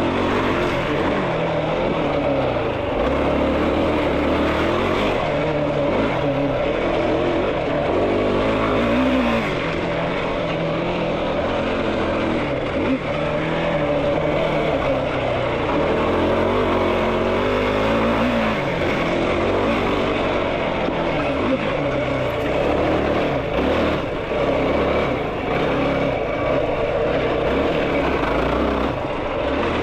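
Yamaha YFZ450R sport quad's single-cylinder four-stroke engine running hard while being ridden, its pitch rising and falling again and again with the throttle.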